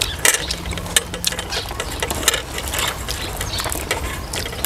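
Irregular clatter of quick clicks and scrapes from kitchen utensils working food, over a steady low hum.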